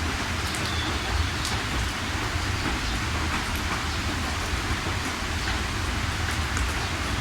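Steady heavy rain, an even hiss with scattered sharp drop hits and a steady low rumble beneath.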